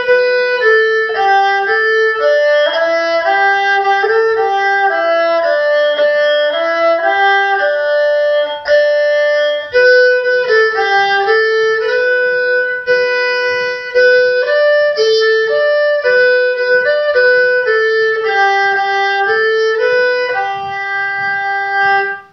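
Solo erhu, the two-stringed Chinese bowed fiddle, playing a simple melody of bowed notes, each held for roughly half a second to a second, with a few brief breaks between phrases.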